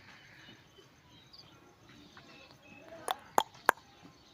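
Three sharp clicks or knocks about a third of a second apart, near the end, over faint bird chirps.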